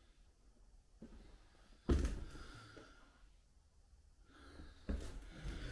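Footsteps on the fire-damaged wooden floor of an empty room: a light knock about a second in, a heavy thud about two seconds in, and another knock near the end.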